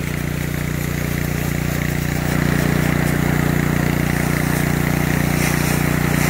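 Engine-driven pressure washer running steadily, powering a jetter nozzle being pulled back through a micro channel drain, with water spraying out of the drain's open end. The engine note gets a little louder about two seconds in.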